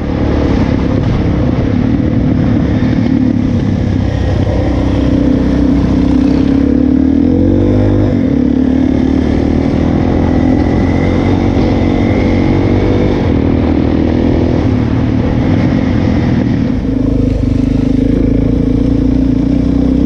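Enduro dirt bike engine running under way, its pitch climbing and shifting several times with the throttle.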